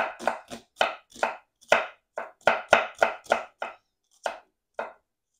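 Large kitchen knife chopping half a small onion on a wooden cutting board: quick repeated strokes, about three a second, thinning to a few spaced strokes near the end.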